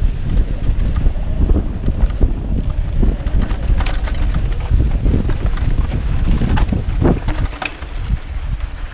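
Wind buffeting the microphone of a mountain bike's on-board action camera as the bike rides fast down a dirt singletrack, with irregular clicks and rattles from the bike over the bumpy trail.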